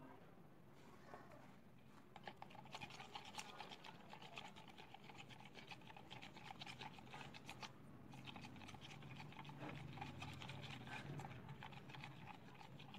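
A small spoon stirring a liquid shampoo mixture in a plastic cup, making faint, rapid scraping and clicking against the cup's sides, starting about two seconds in.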